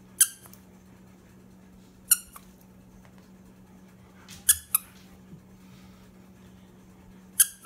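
Green plush squeaky toy squeezed by hand, giving short, high squeaks: single squeaks about every two seconds, with a quick double squeak around the middle.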